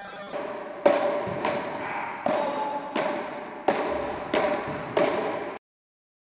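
Frescobol rally: a rubber ball struck back and forth between paddles, seven sharp hits about two thirds of a second apart, each ringing briefly in the sports hall. The sound then cuts off suddenly.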